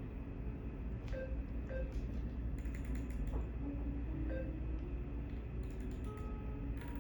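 Ultrasound machine console being operated: three short beeps and scattered clicks of its keys and controls over a steady low hum.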